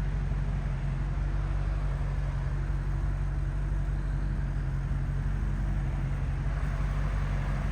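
A motor vehicle's engine idling, a steady low hum that does not rise or fall.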